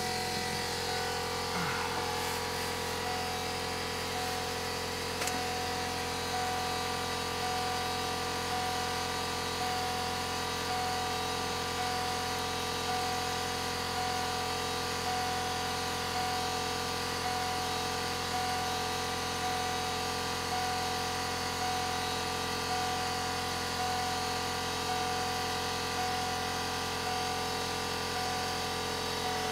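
Steady electric motor hum and whine that holds one pitch throughout. One tone in it pulses on and off evenly, a little more than once a second, over a faint regular beat about every second and a half.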